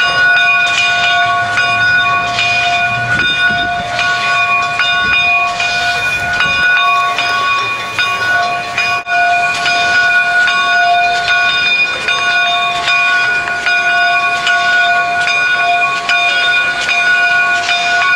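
Canadian Pacific 2816, a 4-6-4 Hudson steam locomotive, passing slowly at close range, its bell ringing over and over, with steam hiss and short repeated strokes from the engine.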